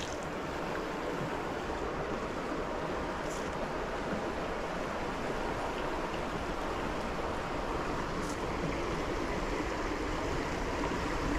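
Creek water flowing, a steady even rush, with two faint ticks about three and eight seconds in.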